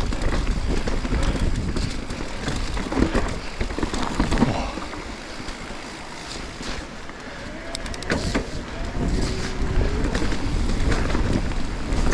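Wind rushing over the microphone with a low rumble from the trail, broken by a few sharp knocks; it eases off briefly about halfway through.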